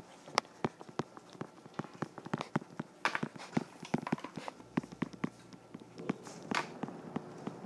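Irregular light clicks and taps of a stylus on a tablet screen during handwriting, with a couple of brief scratchy sounds.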